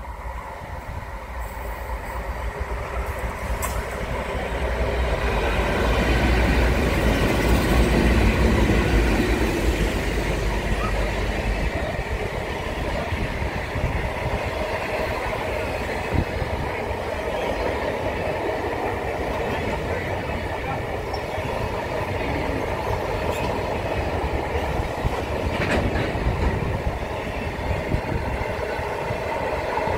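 Diesel-hauled container freight train passing close by, slowing for a red signal. The locomotive's deep engine rumble builds and is loudest about six to eleven seconds in, then the container wagons roll past with a steady rumble and occasional clicks of wheels over rail joints.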